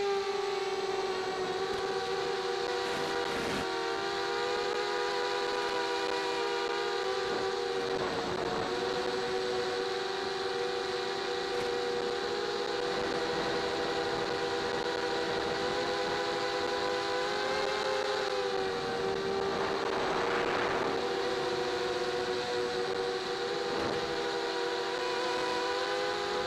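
Electric motors and propellers of a small FPV model aircraft whining steadily in flight, with several close tones that drift together as the throttle changes. The pitch rises a little about two-thirds of the way in, and there is a brief rush of air noise soon after.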